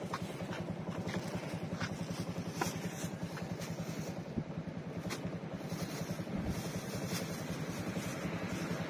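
A small motorcycle engine idling steadily with a fast, even putter. A few light rustles and clicks of plastic bags being handled sit on top.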